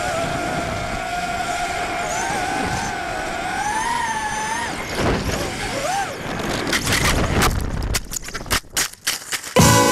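ImmersionRC Vortex 250 Pro racing quadcopter's motors spinning 5x4x4 propellers, picked up by its onboard camera: a high whine whose pitch rises and falls with the throttle. Over the last few seconds the whine breaks up into choppy, uneven rushes and knocks while the quad rolls over.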